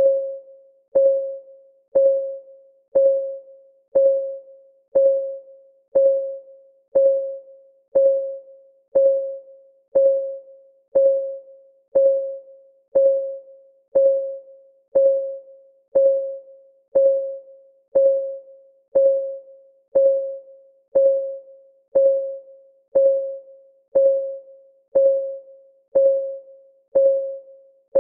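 Steady clock-style ticking of a countdown timer, one tick a second, each a sharp click followed by a short pitched ring that dies away.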